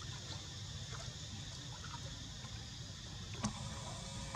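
Faint outdoor ambience with water lapping gently in a stone channel, broken by one sharp click about three and a half seconds in.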